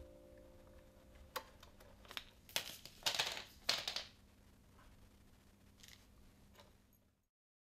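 The last note of a hand-cranked paper-strip music box dies away, then come a few clicks and short bursts of paper rustling as the punched paper strip and the box are handled.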